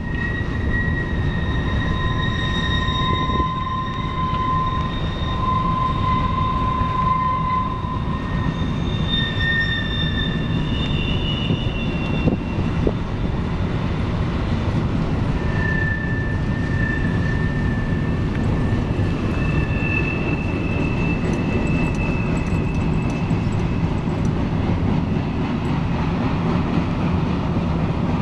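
Freight train of woodchip hopper cars rolling past, with a steady rumble of steel wheels on rail. High-pitched wheel squeal from flanges on the curve comes and goes over the first two-thirds.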